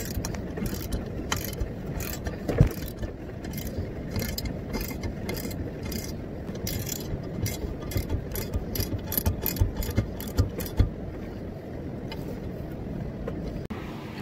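Extendable Stanley ratchet clicking through repeated strokes as a reverse-thread jam nut is tightened onto the blower motor shaft. The clicks come faster in the second half and stop a few seconds before the end, over a steady low background rumble.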